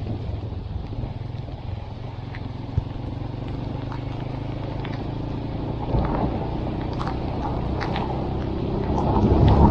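Honda CB190R motorcycle's single-cylinder engine running under way in a heavy rainstorm, with rain ticking on the microphone; a louder rushing noise builds near the end.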